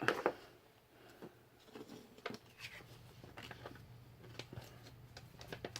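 Quiet handling of small plastic toy pieces and packaging: scattered light clicks and rustles over a faint steady hum.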